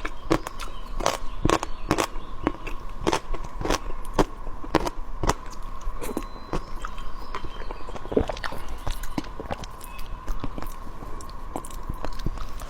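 Close-miked crunchy chewing of pickled dried radish: an irregular run of crisp crunches and mouth clicks.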